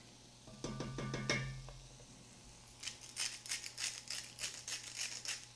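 Hand salt grinder twisted over a pot, a quick run of gritty clicks about five a second for some two and a half seconds, after a few clicks about a second in.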